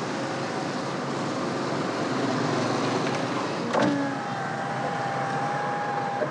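Steady road traffic noise. About four seconds in there is a knock, followed by a steady high tone held for about two seconds.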